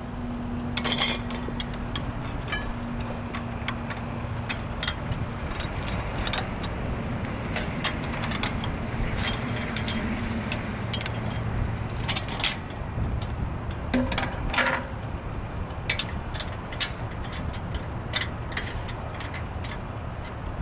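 Metal wrench clicks and clinks, irregular and scattered, as the bolts on the non-return valve cover of a Godwin pump are worked loose. A steady low rumble runs underneath.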